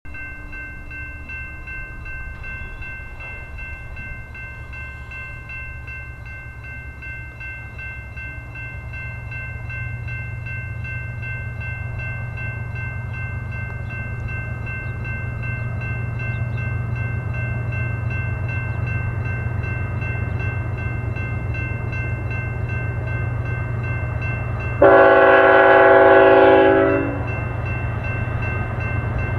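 BNSF freight train's diesel locomotives rumbling steadily and growing louder as the train approaches. Near the end the locomotive horn sounds one chord of about two seconds, the loudest sound here.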